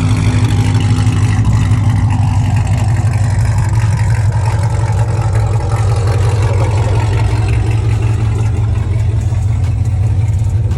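Vehicle engine running at a steady speed, a loud, even hum with no rise or fall.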